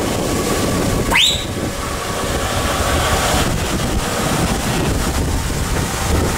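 Heavy trucks in a convoy driving past, a low engine rumble mixed with wind buffeting the microphone. About a second in, a short whistle rises quickly in pitch.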